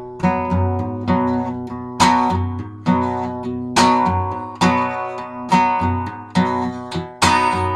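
Acoustic guitar strummed in a steady rhythm, a strong strum about once a second with lighter strokes between, as the instrumental intro before the singing comes in.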